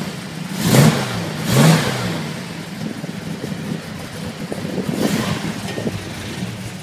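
Jensen Interceptor Mk II's Chrysler V8 blipped twice, about a second apart, each rev rising and falling quickly, then settling back to a steady idle with a milder swell of revs near the end.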